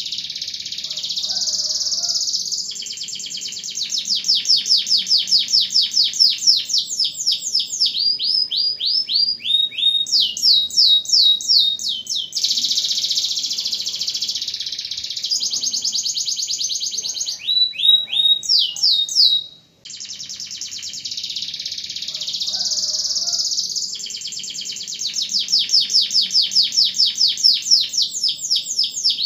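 Domestic canary singing a long, loud, almost unbroken song of rapid rolling trills and runs of fast repeated sweeping notes. The song breaks off briefly about two-thirds of the way through, then starts again.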